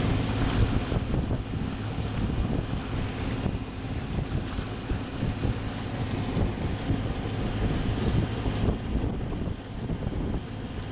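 Wind buffeting the microphone over the steady low hum of a boat's engine under way.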